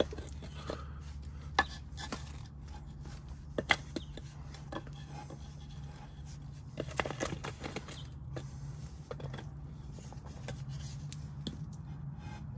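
Scattered knocks and short scrapes of concrete pavers being shifted on their sand bed and butted against a scrap-wood spacer, over a steady low hum.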